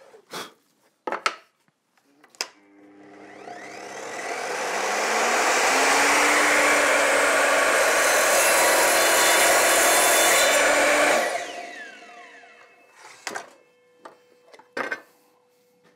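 Evolution R255SMS sliding mitre saw starting up with a rising whine and cutting through a piece of plywood, then switched off and spinning down with a falling whine. A few knocks from handling the saw and workpiece come before it starts and after it stops.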